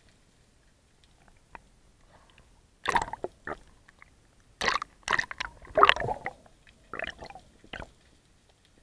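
Underwater handling noise from a diver's gear, picked up by a camera in a waterproof housing: three clusters of clicks, knocks and rubbing, about three seconds in, again from about four and a half to six seconds, and once more near seven seconds.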